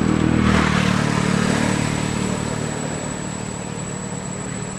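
A motor vehicle passing close by on the road, its engine loudest about half a second in and then slowly fading away.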